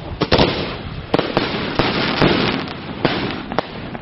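Aerial firework shells bursting in a quick series of sharp bangs, about half a dozen in four seconds, echoing between them.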